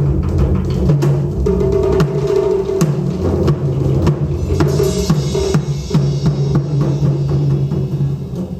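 Japanese taiko drums played by an ensemble: fast, dense strikes over deep booming drum tones, easing off and dying away near the end.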